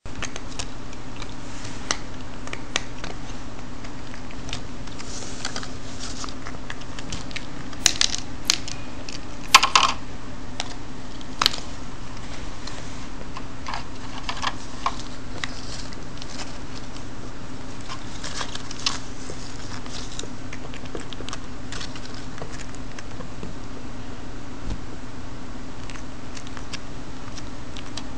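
Cats pawing at treats in a plastic tub of water: scattered small clicks and taps, a few louder ones about eight to twelve seconds in, over a steady low hum.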